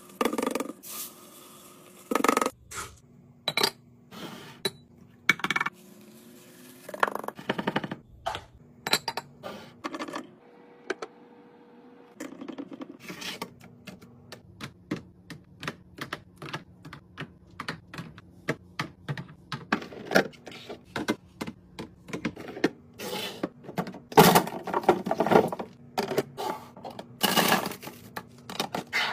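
Restocking sounds: small beads pouring and rattling into a glass jar, eggs clicking and tapping into a clear plastic egg tray, and a plastic bag rustling as green beans tumble into a plastic container near the end. Many sharp little clicks and taps follow one another quickly.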